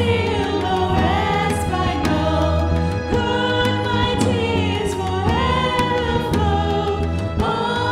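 Live worship band playing a hymn: women singing long held notes into microphones over drums, bass guitar and keyboards.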